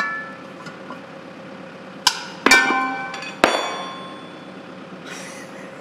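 Metal tire-changing tools clanking against each other and the wheel rim during an ATV tire change. There are several sharp strikes, the loudest a little after two seconds in and again about three and a half seconds in, each leaving a metallic ring that fades out.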